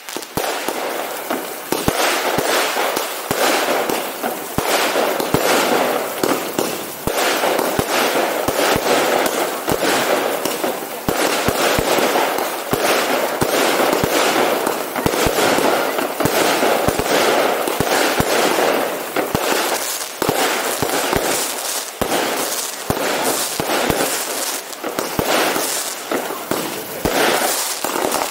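Fireworks display in a dense, continuous barrage: rapid bangs and crackling one after another with no pause.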